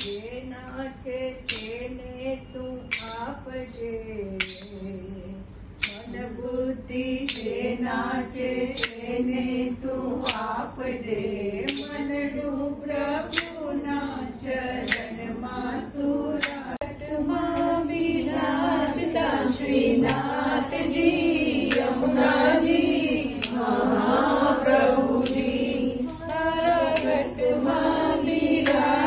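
Manjira, a pair of small metal hand cymbals, struck in a steady beat: a bright ringing clang about every second and a half, quickening to about twice that pace from roughly twenty seconds in. The cymbals keep time for a group of voices singing a Hindu devotional bhajan, and the singing grows fuller in the second half.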